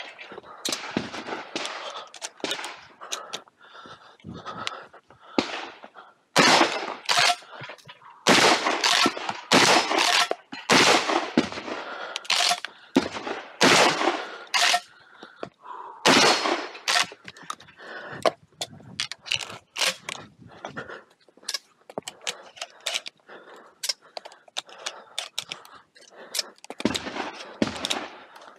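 Templeton Arms T1000 12-gauge shotgun firing repeatedly through a timed shooting stage. The shots come in runs, often about two a second, with pauses of a few seconds between runs and smaller clicks and knocks in the gaps.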